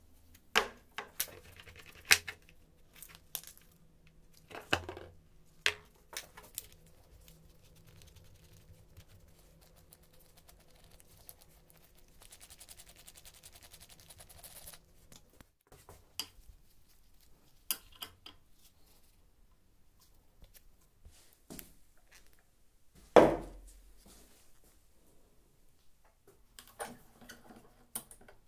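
Metal parts handled on a wooden workbench: scattered clicks and knocks as a steel coupling nut and an angle grinder's gearhead are handled and fitted, with one louder knock late on.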